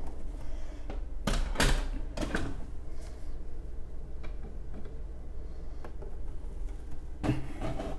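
Plastic knocks and scraping clicks as a curved monitor's back is worked onto the mounting tabs of its stand, with a cluster of louder knocks about a second and a half in and scattered light ticks after.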